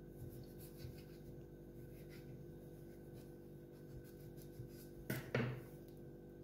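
Small kitchen knife cutting around a plum's stone on a bamboo cutting board, with faint scraping and ticking from the blade. About five seconds in, two sharp knocks as the knife is set down on the board. A faint steady hum lies underneath.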